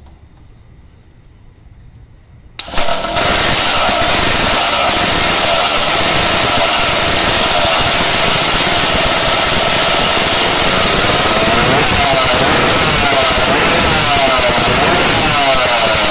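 Sliding-cylinder two-stroke engine with stinger exhausts starts abruptly about two and a half seconds in and runs loud and steady, unloaded because the dyno absorber is not absorbing. In the last few seconds its pitch rises and falls a few times.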